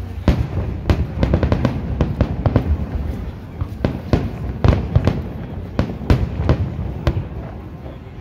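Aerial fireworks display: a rapid series of shell bursts, with sharp bangs and crackles coming several a second, over a steady low rumble. The bangs thin out near the end.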